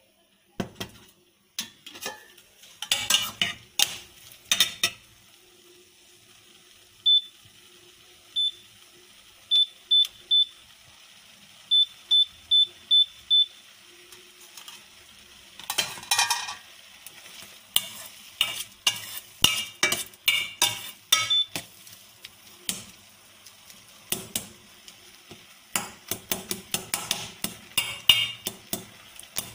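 Steel spoon stirring and scraping crumbly curdled-milk curds in a stainless steel pan on an electric hob, with many quick clinks of metal on metal. About a third of the way in comes a run of about ten short high beeps from the cooktop's controls being set.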